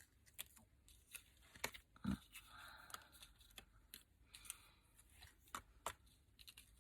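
Faint rustling and scattered light ticks of cut-out paper toppers being handled and laid down.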